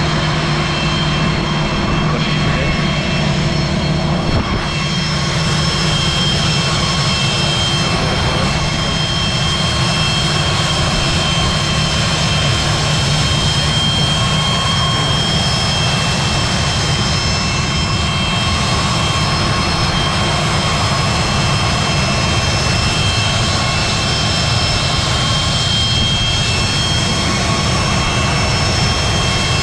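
Aircraft de-icing rig spraying de-icing fluid from a hand nozzle onto a jet's wing: a steady loud rumble and hiss under a constant high whine.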